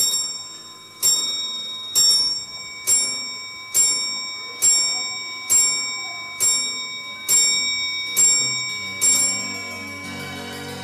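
A clock bell striking the hour: one bell struck about eleven times, just under a second apart, each stroke ringing on and fading before the next. Soft music comes in near the end.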